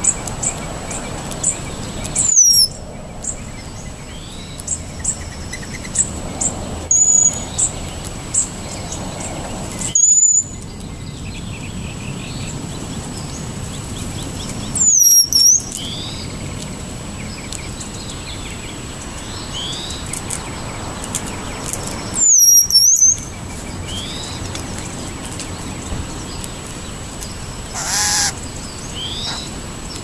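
Wild songbirds calling: four loud, very high calls that slide down and hook back up, several seconds apart, with softer short rising notes between them and a harsher call near the end. A faint steady high tone runs underneath.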